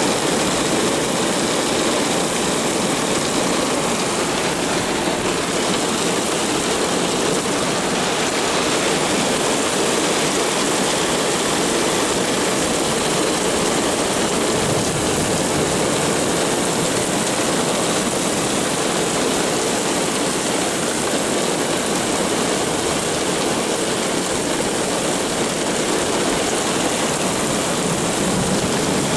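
Heavy thunderstorm downpour: steady rain pouring onto pavement, an even rushing noise that keeps up without letting off.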